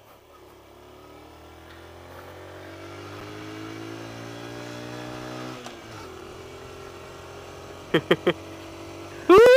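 Honda ZB50's small four-stroke single engine accelerating hard, its pitch rising steadily for about five and a half seconds, then dropping at a gear change and running on more steadily. Near the end a man's short vocal sounds come, then a loud shout falling in pitch.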